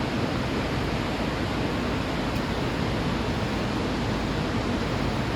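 Steady roar of a large waterfall: an even rush of falling water.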